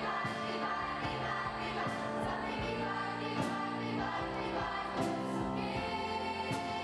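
A youth choir sings a pop song live, backed by a band with a keyboard, with a percussive hit about every second and a half.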